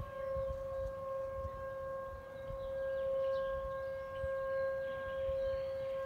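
Outdoor tornado warning siren sounding during a test, one steady held tone with overtones, its loudness swelling and easing slowly.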